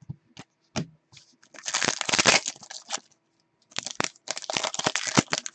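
Plastic foil wrapper of a hockey trading-card pack crinkling and tearing open, with a few small clicks first, then two spells of crackling about a second and a half each.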